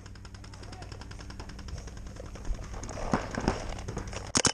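Paintball markers firing rapidly across the field, a fast even rattle of shots, with a short burst of louder, closer shots near the end.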